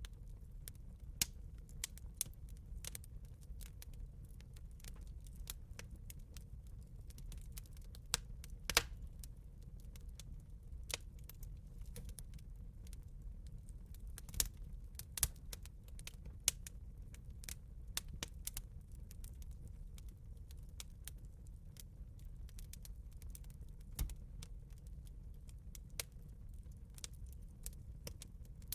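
Wood bonfire burning: irregular sharp crackles and pops over a steady low rumble, with a few louder pops.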